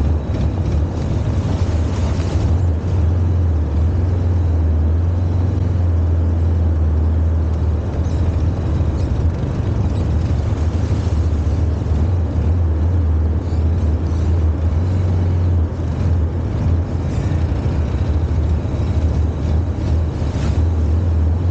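An ATV engine running at a steady, low drone as the quad rides along a muddy trail.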